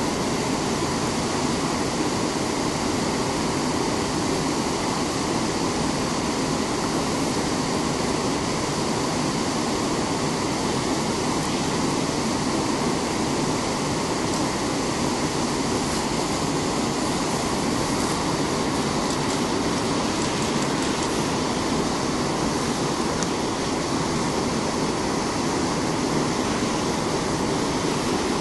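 Steady rush of whitewater from a river cascade and rapids pouring over rocks.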